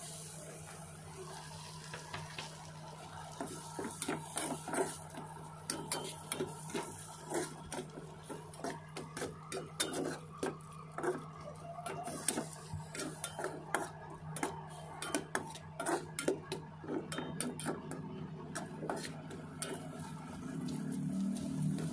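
Slotted metal spatula scraping and clattering irregularly against a metal wok while canned sliced mushrooms are stirred in melted butter, over a steady high hiss of frying. The clatter picks up a few seconds in and eases off near the end.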